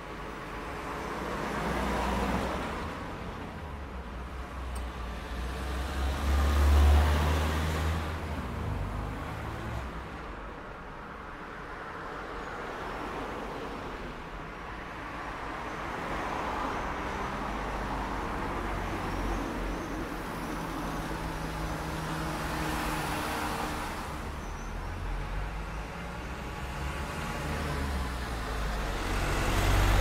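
Rush-hour city street traffic: cars driving past one after another, each swelling and fading, over a steady rumble of traffic. The loudest and deepest pass-by, a heavier vehicle, comes about seven seconds in.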